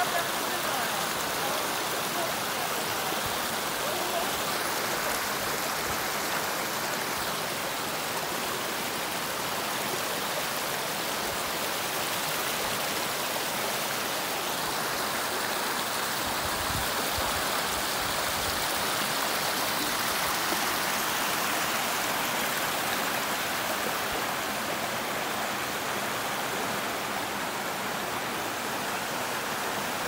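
Waterfall pouring into a rock pool, a steady, even rush of falling water.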